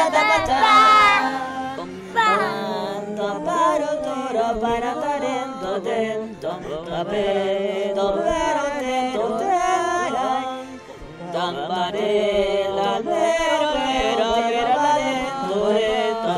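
Music with singing voices chanting in wavering pitches, with no clear words.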